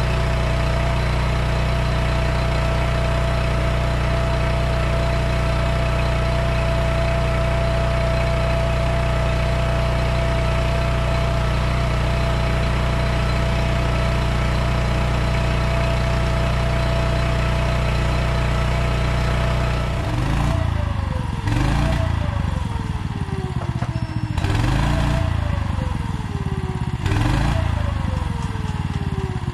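A 5-inch FPV quadcopter's brushless motors and propellers spin with a steady whine. About twenty seconds in come four short throttle bursts, each followed by a falling whine as the motors spool back down.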